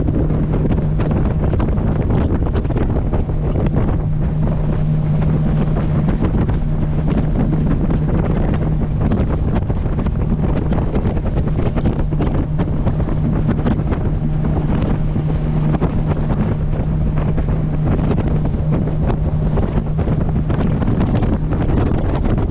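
Boat engine running under way with a steady low hum, over heavy wind buffeting on the microphone and the rush of water past the hull; the hum fades somewhat near the end.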